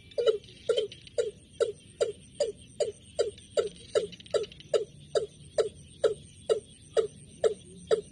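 Bird call used as a trapping lure: a short low note with a sharp onset, repeated steadily about two and a half times a second.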